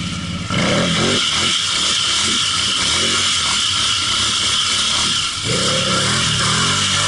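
Can-Am Renegade XXC ATV's V-twin engine revving up and down as it drives through deep water, with water splashing around the wheels. The engine picks up and gets louder about half a second in, eases briefly about five and a half seconds in, then revs up again.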